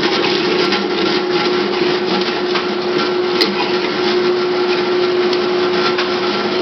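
Dairy Queen Blizzard mixer running steadily with a constant motor hum as its spindle spins the spoon through a cup of ice cream, cutting off near the end.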